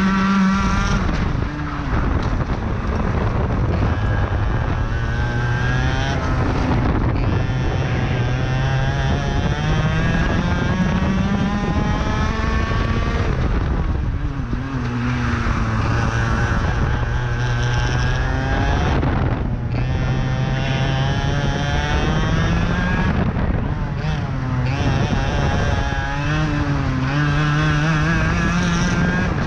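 IAME X30 125cc two-stroke kart engine at racing speed, its note climbing as it accelerates and dropping off several times as the driver lifts for corners, then climbing again.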